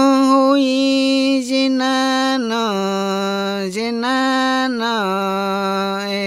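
A man chanting an icaro, a sacred healing song, in long held notes. The pitch steps down about two and a half seconds in, with brief breaths between phrases.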